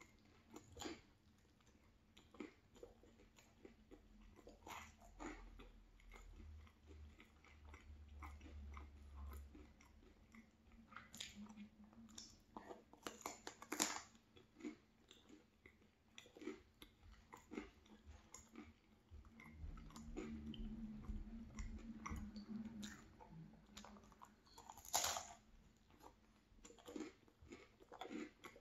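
Close-miked chewing of a cheese bagel with jam: a scatter of soft mouth clicks and smacks, with a sharper bite into the bagel near the middle.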